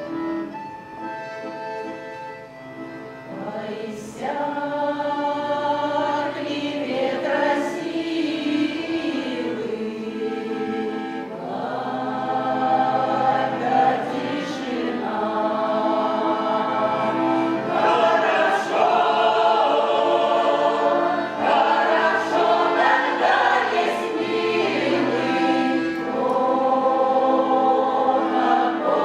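Russian folk song choir singing, with a quieter passage of held instrumental tones before the voices come in strongly about four seconds in.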